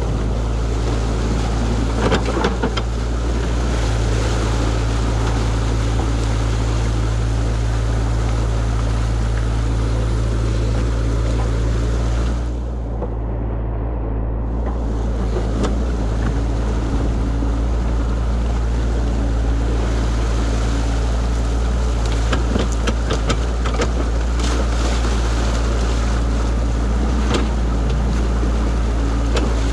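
Floodwater rushing through a breached beaver dam, over the steady low running of a New Holland mini excavator's engine. The rushing hiss dips away for about two seconds a little before the middle, and scattered sharp clicks and knocks come in the second half.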